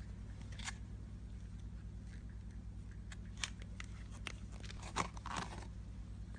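Slime being handled, giving scattered clicks and crackles, loudest about five seconds in, over a steady low hum.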